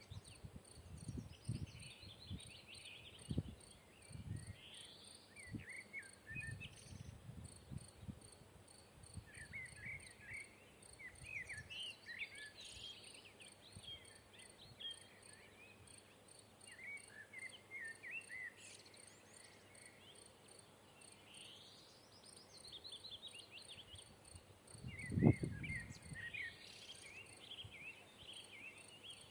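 A common blackbird singing phrases every few seconds over the continuous rapid chirping of crickets. Low thumps come now and then, the loudest about 25 seconds in.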